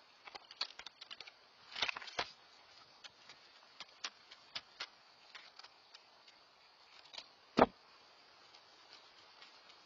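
Owlets' feet and wings scuffing and knocking on a wooden nest platform: scattered sharp clicks and scratches, a cluster of scuffs about two seconds in, and one louder knock about three quarters of the way through.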